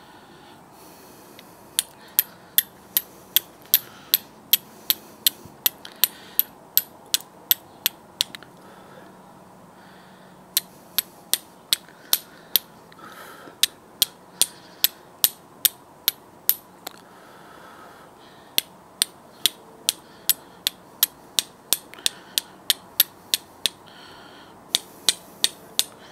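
Flint and steel being struck again and again, sharp clicks about three a second, in three runs with short pauses between, to throw sparks onto a piece of clay-baked charcloth. The charcloth is not taking the spark, a sign that it was not charred long enough.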